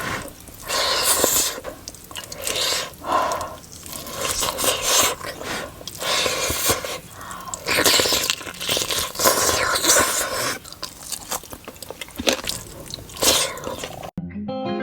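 Close-miked eating sounds: a person chewing and crunching mouthfuls of food in irregular bursts, with wet mouth clicks. Just before the end the sound cuts abruptly to acoustic guitar music.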